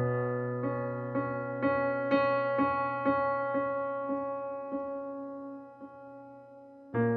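Soft piano music: single notes struck about twice a second over a held low chord that slowly fades, with a new chord struck near the end.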